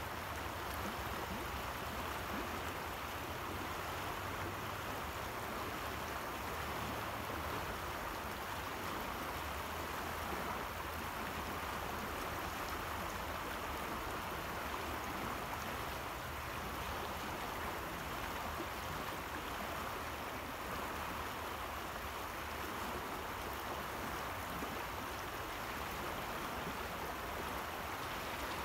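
Steady rushing of a river's rough, fast-flowing water.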